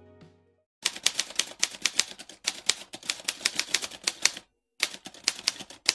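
Typewriter keys struck in a fast run of clacks for about three and a half seconds, then after a short pause a second, shorter run of about a second. A musical note fades out just before the typing begins.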